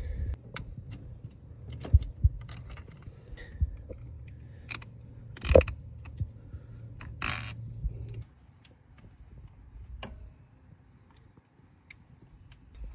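Scattered metallic clinks and clicks of small bolts and a ratchet wrench as the ignition coil pack's hold-down bolts are dropped in and run down, with one sharper clink a little over halfway through.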